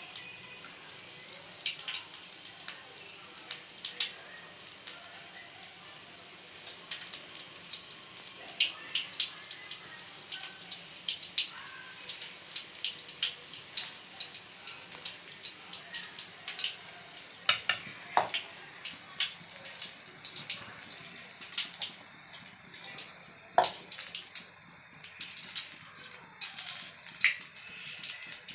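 Batter-coated green chillies (mirchi bhaji) deep-frying in hot oil in an aluminium kadai: a steady sizzle with many sharp crackles and pops.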